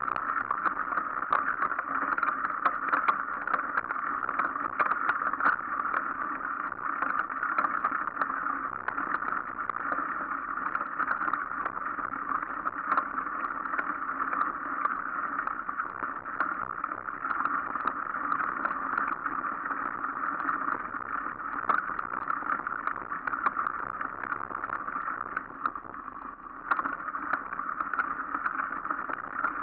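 Mountain bike riding over a dirt, leaf and snow trail: a steady, muffled rush of tyre and wind noise with frequent small clicks and rattles from the bike. It eases off briefly near the end, then a sharper knock comes.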